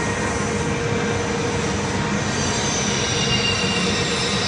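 PET plastic pelletizing line's extruder running: a steady machine drone with thin, held whining tones over it.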